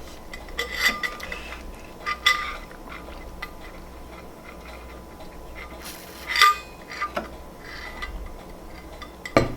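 Several light clinks and taps of tableware, a handful of separate strokes with brief ringing, the loudest about six seconds in.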